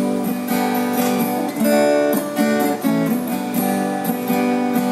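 Acoustic guitar strummed, the chords changing every second or so.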